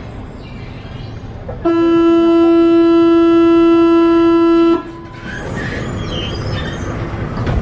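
Paris Metro MF88 train's door-closing warning buzzer: one loud, steady pitched tone lasting about three seconds, starting and stopping abruptly, signalling that the doors are about to close. Station and train rumble continues around it.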